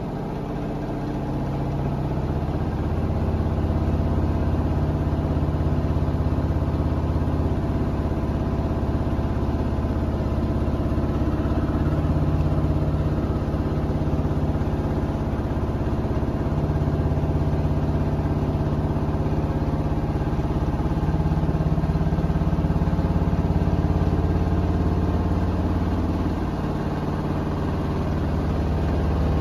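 Bosch VarioPerfect EcoSilence Drive washing machine running in service mode with an unbalanced load: a steady motor hum and drum rumble whose pitch steps up and down every few seconds, the loudness swelling and easing in slow waves as the drum turns with water sloshing inside.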